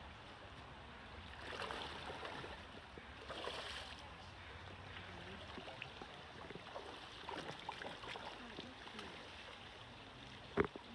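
Shallow creek water running over gravel, with bursts of splashing as chum salmon thrash in the shallows, and a single sharp click near the end.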